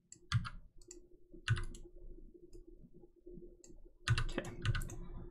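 Computer mouse clicks: single clicks about a third of a second and a second and a half in, then a quicker run of clicks from about four seconds in, over a faint steady hum.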